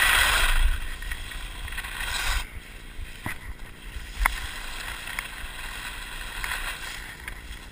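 Skis scraping and carving on groomed snow through slalom turns, with a loud hiss of snow spray at the start and again about two seconds in. Wind rumbles on the microphone, and there are a few sharp clicks.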